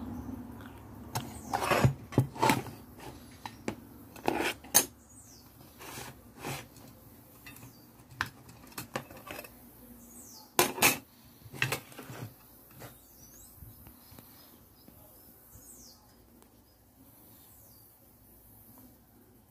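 Irregular clinks and knocks of the amplifier's finned metal housing and cover being handled and moved on a table. They are densest in the first few seconds and again about ten seconds in, then thin out.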